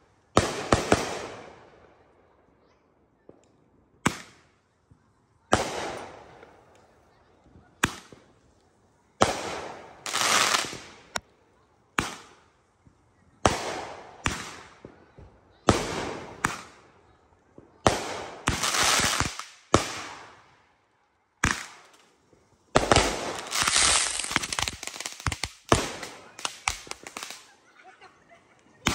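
Consumer aerial fireworks going off in a series of sharp bangs, one every second or two, each followed by a fading crackling hiss. Near the end several bursts come in quick succession.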